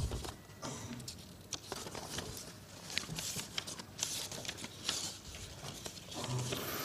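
Sheets of paper rustling and pages being leafed through at a podium microphone, a scatter of soft crinkles and small ticks.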